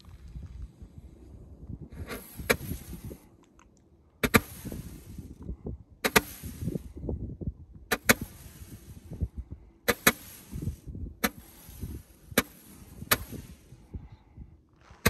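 Two consumer Roman candles firing, each shot a sharp pop followed by a short hiss as a star is thrown out. The shots come about every one to two seconds, sometimes two almost together, with about ten in all.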